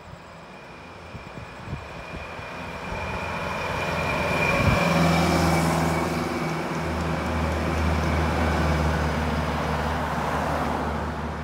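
Vintage MCI highway coach driving past close by, its diesel engine and tyres growing louder to a peak about five seconds in. A steady low engine hum follows as further coaches and a car come past.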